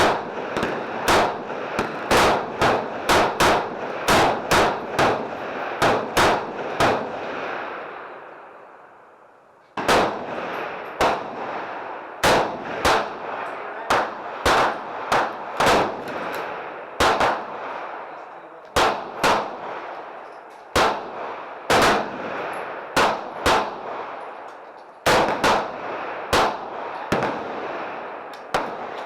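Gunfire from several shooters on a shooting-range firing line: dozens of sharp shots at irregular spacing, some coming in quick strings, each followed by a ringing echo. The firing dies away about eight seconds in and resumes with a loud shot about ten seconds in.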